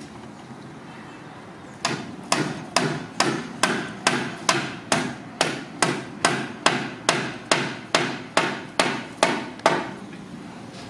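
Steady hammering, about two and a half sharp blows a second, starting about two seconds in and stopping shortly before the end.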